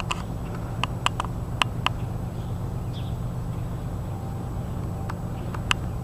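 A steady low rumble with a few short, sharp clicks scattered through it, a cluster of four in the first two seconds and one near the end.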